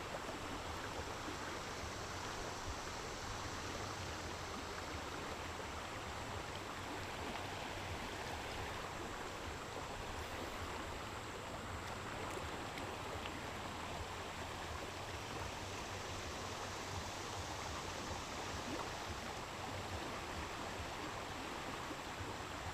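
Steady rush of water flowing at a dam, an even, unchanging noise.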